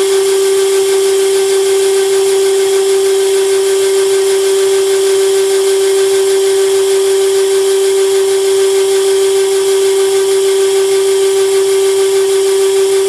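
Pandjiris 30-6AB welding positioner's tilt drive running at its constant speed as it tilts the table: a loud, steady whine held at one pitch, with a hiss over it.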